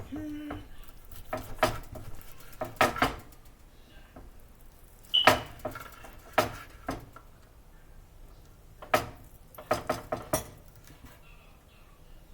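Kitchen utensils and dishes knocking and clinking: a scattered run of separate sharp clicks and clanks, one giving a brief ring about five seconds in.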